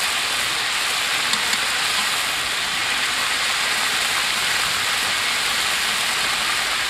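Whole quail deep-frying in a wok of hot oil: a steady, even sizzle with a few faint crackles.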